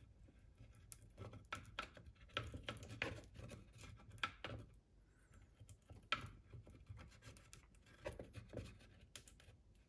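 Small brush spreading epoxy glue inside a carved pocket in a wooden decoy body: faint, irregular scratching and dabbing strokes, with a short pause about halfway through.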